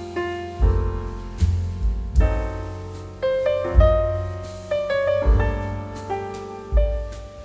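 Background music: a piano playing slow chords and melody notes, each struck and left to ring.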